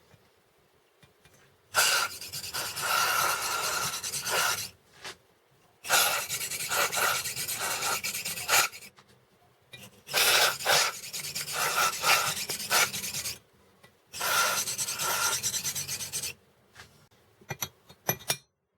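Hand reamer being turned through the exhaust valve guides of a MeMZ-2471 cylinder head, rasping metal on metal in four strokes of about three seconds each with short pauses between them. A few light clicks of metal tools near the end.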